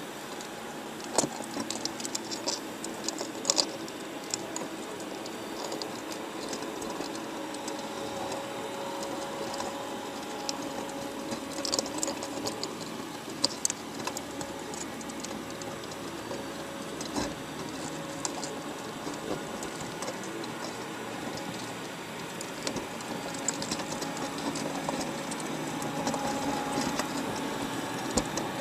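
Underwater recording from inside a crab trap: a steady hum and hiss with scattered sharp clicks and taps as crabs climb over one another and the wire mesh.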